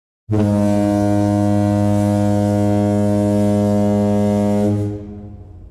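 Ship's horn sounding one long, deep blast, held steady for about four and a half seconds, then dying away with an echo.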